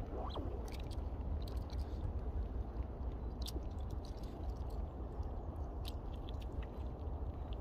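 Scattered light, sharp clicks and scratches of a Eurasian red squirrel's claws gripping rough tree bark as it moves on the trunk, over a steady low rumble.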